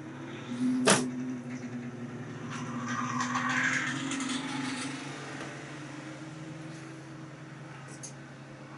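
A fork clinks sharply against a stainless steel steamer basket about a second in, then scrapes as boiled potatoes are lifted out, with a few light clicks near the end. Underneath runs a steady low hum.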